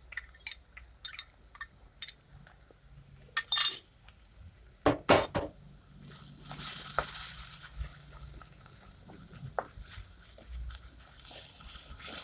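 A metal teaspoon clinking and tapping against a porcelain spice tray as cumin seeds are tipped into a clay pot. Then a wooden spoon scrapes and stirs ginger-garlic paste frying in oil in the clay pot, with a short spell of hissing a little past halfway.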